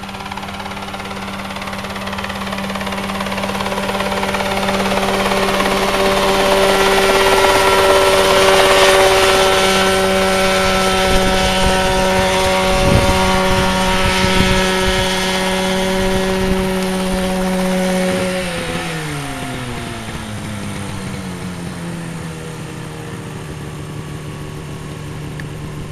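Mosquito ultralight helicopter's engine and rotor running steadily at high power, growing louder over the first several seconds. About two-thirds of the way through the engine speed drops and it settles into a lower, quieter idle.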